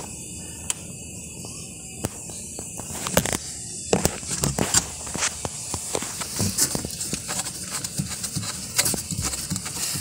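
Irregular clicks and knocks around a washing machine's wash motor and belt drive, starting about three to four seconds in, over a steady high hiss.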